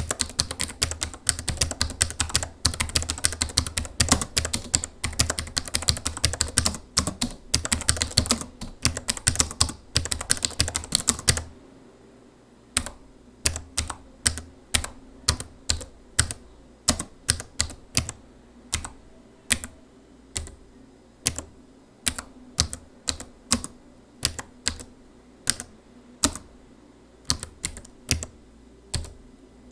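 Typing on a laptop keyboard: rapid, continuous keystrokes for about the first eleven seconds, then slower, separate key presses, a little more than one a second.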